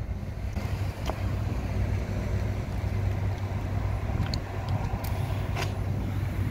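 Steady low mechanical hum throughout. A few short clicks and hisses come as an air hose chuck is pressed onto a car tyre valve: about a second in, and several times between about four and six seconds in.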